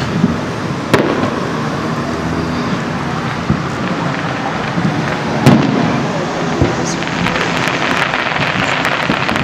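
Fireworks display: sharp bangs of shells bursting, the loudest about a second in and about five and a half seconds in, over a continuous rumble of distant bursts. Rapid crackling sets in near the end.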